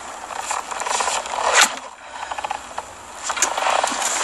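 Film sound effects of bronze armour and leather gear creaking, rubbing and clinking as a warrior moves, with a louder scrape about one and a half seconds in.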